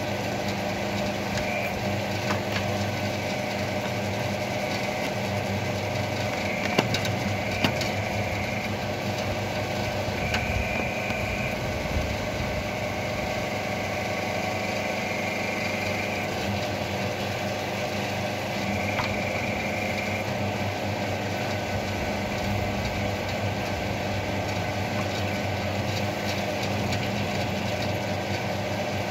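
Homemade electric mini excavator's hydraulic drive running steadily, with a higher whine coming and going in several short stretches as the root ripper is worked into the stump roots. A few sharp knocks about seven seconds in.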